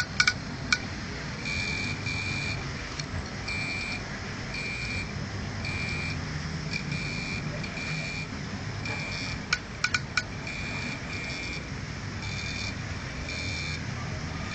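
An opened 2.5-inch IDE laptop hard drive running with its cover off: repeated short buzzing chirps, roughly one a second, over a steady hum, with a few sharp clicks near the start and a cluster around ten seconds in. This is a failing drive's read/write head clicking and buzzing.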